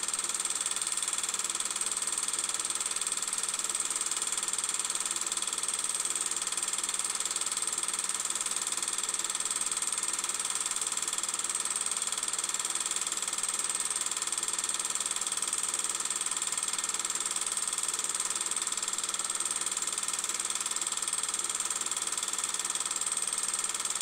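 Steady machine-like whirring hiss, unchanging throughout, with no speech or music over it.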